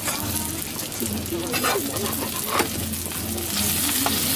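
Okonomiyaki sizzling on a flat iron griddle, with two short clatters of metal spatulas against the griddle; the sizzle gets louder near the end.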